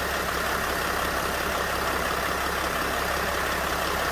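Mercedes Sprinter van engine idling steadily, its newly replaced alternator turning on the belt.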